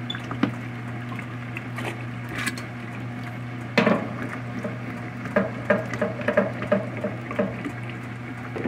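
Water sloshing and splashing in a top-loading washing machine tub as soapy clothes are stirred and pushed with a wooden stick, over a steady low hum. A sudden loud hit comes about four seconds in, then irregular splashes two or three a second.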